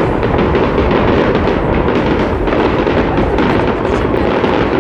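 Many fireworks going off at once: a dense, continuous din of overlapping bangs and crackles with no pause.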